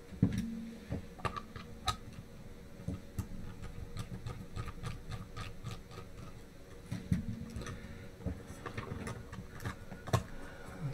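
Small hand screwdriver backing screws out of an MSI MAG360R AIO pump head, with irregular light clicks and taps of metal and plastic as the block is handled.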